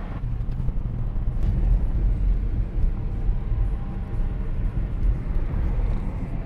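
Steady low rumble of road and engine noise inside the cabin of a moving Honda Odyssey (RB1) minivan.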